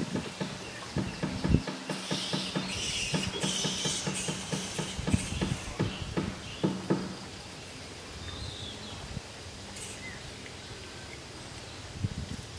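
Flying foxes calling at their roost, a few harsh screeching bursts about two to four seconds in and a faint short call later on. Irregular low thumps and knocks run underneath for the first half.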